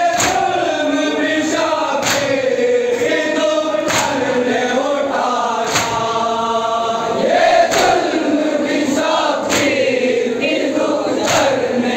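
A group of men chanting a noha (Shia lament) in unison behind a lead reciter, with a loud unison chest-beating slap (matam) about every two seconds.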